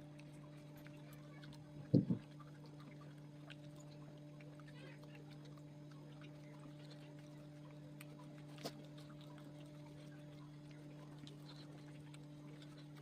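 Steady low hum from a motor or electrical appliance, with a pair of sharp knocks about two seconds in and a single click later.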